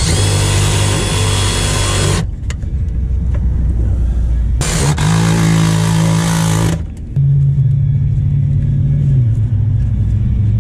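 Cordless driver running in two bursts of about two seconds each, at the start and again about five seconds in, driving screws in an air-conditioning condenser's electrical panel. A steady low hum runs underneath.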